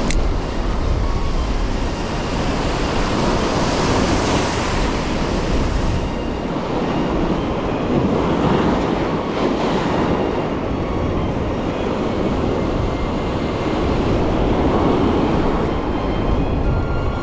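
Surf breaking on a sandy beach, a steady wash that swells and eases every few seconds, with wind rumbling on the microphone.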